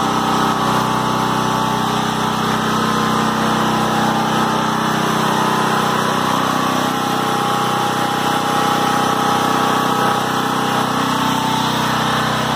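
Caterpillar (CAT) RP5500 portable gasoline generator running at a steady, even speed under load, powering several chest freezers.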